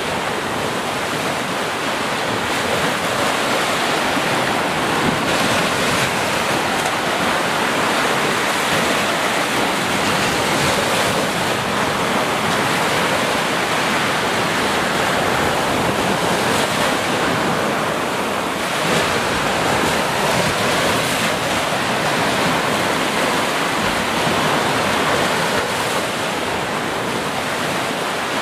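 Small ocean waves breaking and washing up a sandy shore: a continuous rush of surf with gentle swells.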